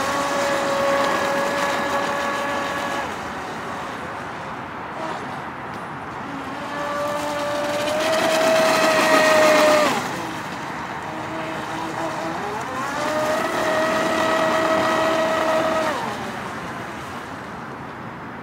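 Proboat Shockwave 26 RC speedboat with a 3300kv brushless motor, whining at speed in three separate runs, with the hull hissing over the water. The middle run is the loudest and stops sharply about ten seconds in. The last run rises in pitch about twelve seconds in, holds steady, and drops away about sixteen seconds in.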